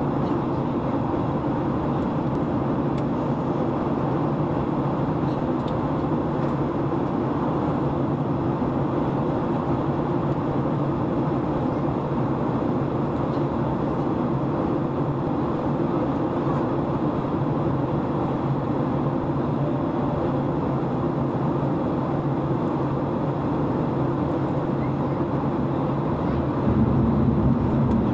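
Steady in-flight cabin noise of an airliner: engine and airflow rumble heard from inside the cabin, low and even, a little louder near the end.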